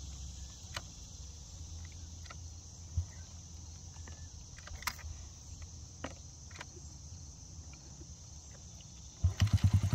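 Crickets trilling steadily, with a few light knocks. About nine seconds in, a small children's dirt bike engine, kick-started, catches with a quick run of firing pulses and keeps running.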